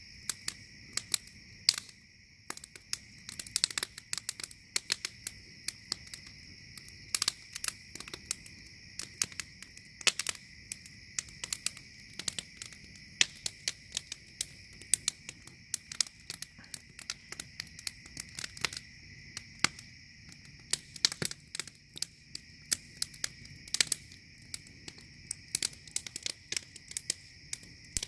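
Wood fire crackling and popping irregularly, several sharp pops a second, with sparks flying from the burning logs. Behind it runs a steady high chorus of night insects.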